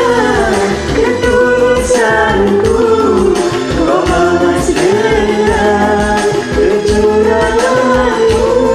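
Singing over a karaoke backing track, the voice holding and bending long notes above a steady bass and beat.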